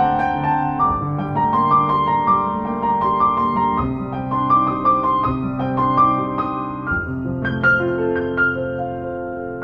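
Background music, a calm piano melody with sustained notes.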